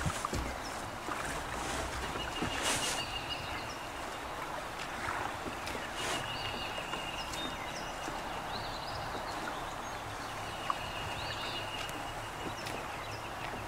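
Lakeside ambience: a steady rush of wind and water, with a bird repeating a high, even trill about a second long every few seconds, short higher chirps between.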